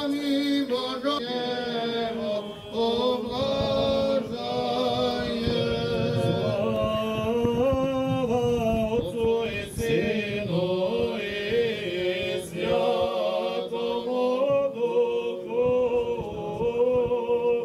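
Orthodox liturgical chant: several voices singing together in long held notes that move up and down step by step.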